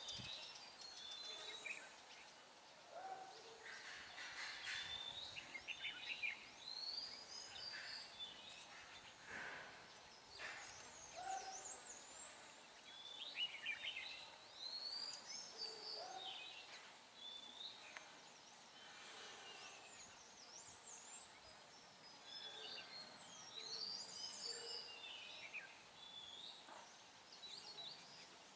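Red-whiskered bulbuls calling and singing in short whistled phrases that rise and fall, one after another. A low hooting note from another bird repeats every few seconds.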